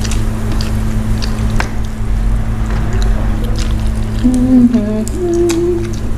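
Close eating sounds: lip smacks and wet chewing clicks as grilled chicken and rice are eaten by hand, over a steady background hum. About four seconds in, a short hummed "mmm" of two wavering notes, made with the mouth full.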